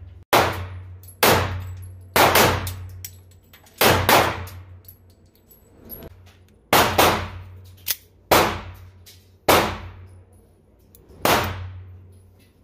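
Semi-automatic pistol fired about ten times at an uneven pace, single shots mixed with quick pairs. Each sharp crack echoes in an indoor range.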